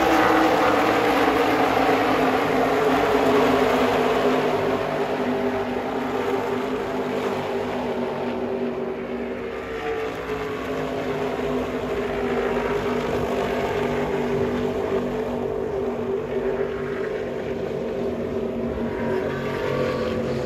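NASCAR Xfinity Series stock cars' V8 engines running at speed on the track. The engine tone falls in pitch over the first several seconds as the cars pass and head away, then rises again faintly near the end.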